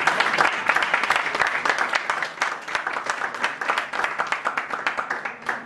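Audience applauding, many hands clapping quickly, dying away near the end.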